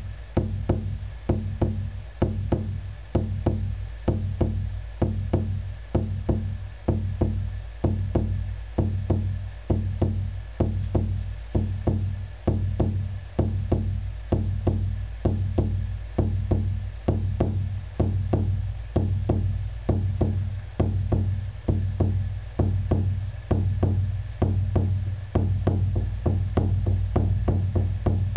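Shamanic frame drum beaten in a steady, even beat of about two to three strokes a second, each stroke a deep boom: the monotonous drumming used to carry a shamanic journey meditation.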